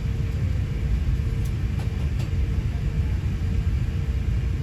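Steady low rumble of an Airbus A350 airliner cabin on the ground, with a faint steady hum above it.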